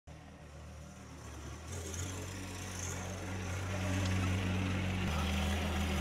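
Compact tractor's engine running, getting steadily louder as the tractor drives closer, its low drone stepping in pitch about two seconds in and again near the end.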